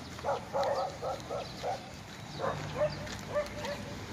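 A dog barking repeatedly in short, quick barks, in two runs with a brief pause between them.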